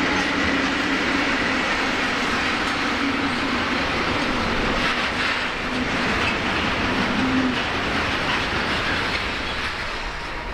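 Freight wagons rolling past, a steady rumble with wheels clacking over the rail joints and a thin steady whine over it for the first seven seconds or so. It eases off a little near the end as the last wagons go by.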